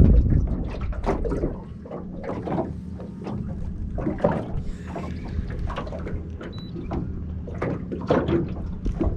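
Knocks and clatter of gear against a small fishing boat's hull and deck, with a loud thump at the start and a steady low hum underneath.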